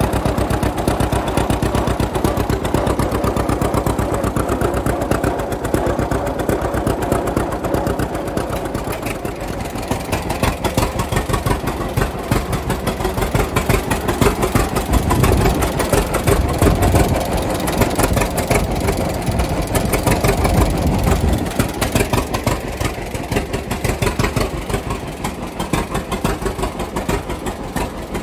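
1939 John Deere Model A two-cylinder tractor engine running with a rapid popping beat of firing strokes, its speed and loudness rising and falling, heavier and deeper in the middle.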